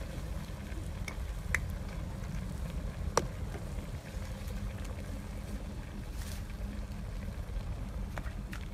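Steady low rumble of wind on the microphone, with a few light clicks of cookware, the sharpest about three seconds in and a couple more near the end.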